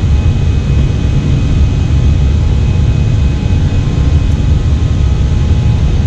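Steady flight-deck noise inside an Airbus A320: a loud, even low rumble of engines and airflow with a hiss over it.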